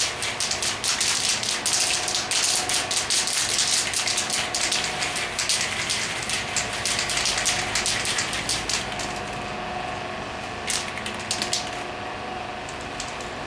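Aerosol spray-paint can (rattle can) hissing in many rapid short bursts as paint is sprayed. It stops about nine seconds in, with a few brief bursts near the end.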